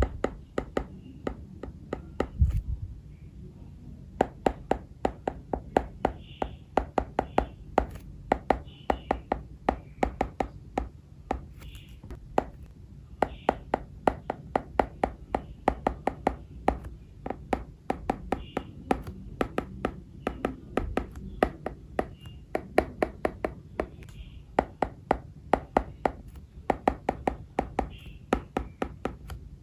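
Stylus tip tapping and clicking on an iPad's glass screen during handwriting: a quick, irregular run of sharp taps, several a second, with a slightly heavier knock about two and a half seconds in.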